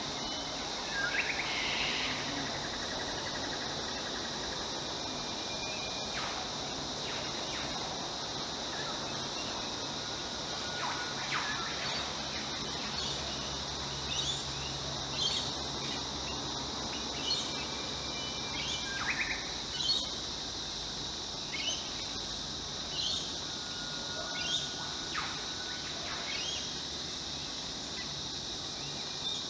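Garden birdsong: many short, scattered chirps and calls over a steady high insect drone. Near the start, a bird splashes in a birdbath.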